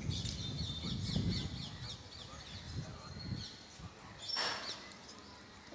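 Birds chirping in quick, high calls, over close low rustling and rubbing noise that is loudest in the first second and a half, with a short rush of noise about four and a half seconds in.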